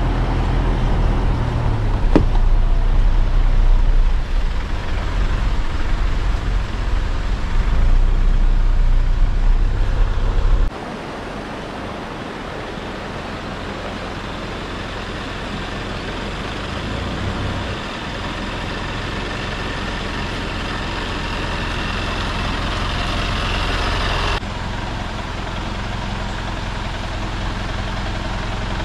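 Mitsubishi SUV driving slowly over a rough gravel track, heard as a heavy low rumble from inside the car. About ten seconds in it cuts off suddenly to a quieter, steady noise of the SUV moving across the dirt campsite, with a hiss that grows toward the end.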